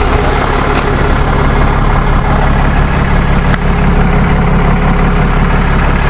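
A big truck's engine idling steadily close by, with one faint click about three and a half seconds in.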